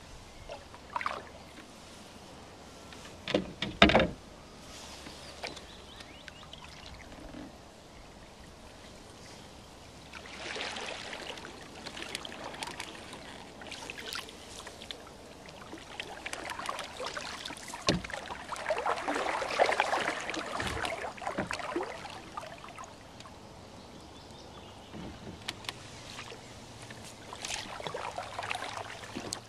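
Paddle strokes pulling water past a Mad River Reflection canoe, with splashing and gurgling that come and go with each stroke. A few sharp knocks about one and four seconds in are the loudest sounds.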